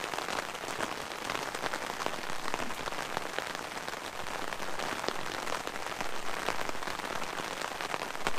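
Heavy rain falling on the fabric canopy of a fishing brolly, a dense, steady patter of many small drop hits.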